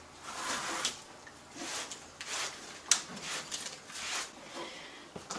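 Broom sweeping loose wood-shaving bedding across the floor in a series of irregular swishing strokes, with one sharp tap near the middle.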